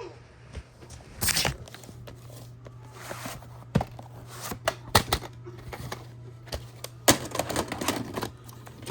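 Irregular sharp clicks and knocks, a few louder than the rest, over a steady low hum.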